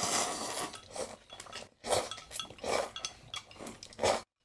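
Two people slurping hot soba buckwheat noodles from bowls, a series of loud, airy slurps.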